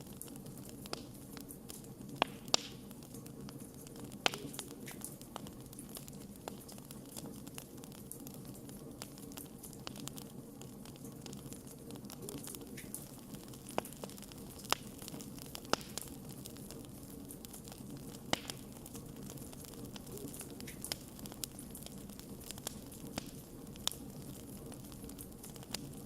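Wood fire burning in a fireplace: a steady low hiss of flames with irregular sharp crackles and pops from the burning logs, a few of them louder than the rest.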